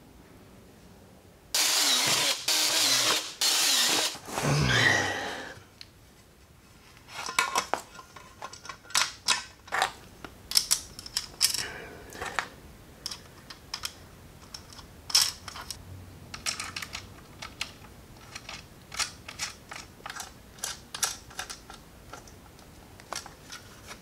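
Cordless drill running in three short bursts and then a fourth whose pitch rises, working on aluminum angle; then a long run of light clicks and clanks as the aluminum angle and a metal drawer slide are handled and set down.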